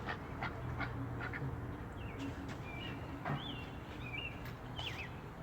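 Faint high bird chirps: a handful of short whistled notes, some gliding up or down, over a low steady hum and background noise.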